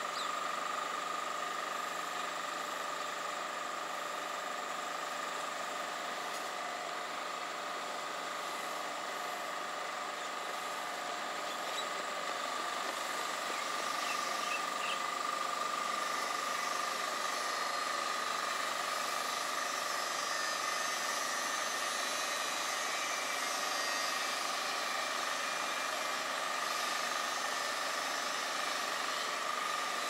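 Steady outdoor background drone: an unbroken high hum holding one pitch over a soft hiss, with a few faint short chirps about halfway through.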